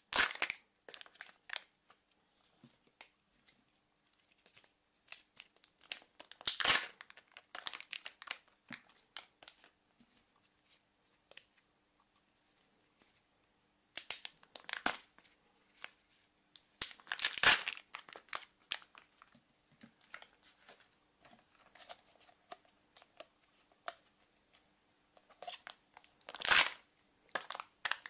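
Wrapper of a chocolate surprise egg crinkling and tearing as it is unwrapped by hand, in irregular bursts. Three crackles stand out as louder: about a quarter of the way in, past the middle, and near the end.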